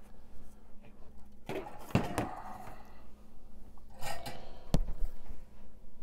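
Bench handling noises: a few knocks, clicks and a scrape as a circuit board and its new 12-pin connector are handled and moved, the sharpest click a little before five seconds in, over a faint steady hum.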